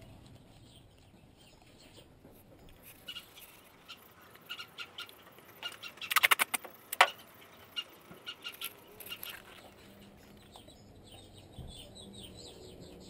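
Duct tape pulled off the roll and torn: a run of sharp crackling rips, with the loudest, densest burst about six to seven seconds in.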